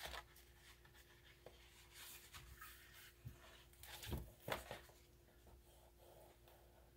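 Faint rustling and shuffling of paper and card pages being handled, with a couple of soft knocks about four seconds in, over a faint steady hum.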